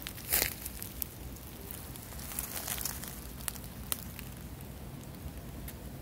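Footsteps crunching through dry leaves and twigs: scattered crackles and rustles, the loudest about half a second in.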